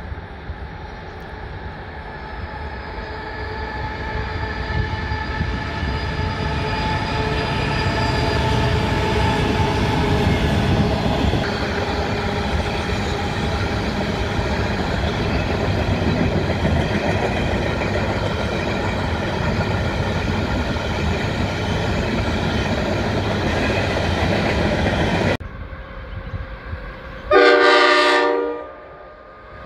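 A diesel-hauled freight train runs past steadily, growing louder over the first several seconds, with its wagons rolling on the rails. Near the end, after a sudden change in the sound, a diesel locomotive's multi-tone horn sounds once for about a second.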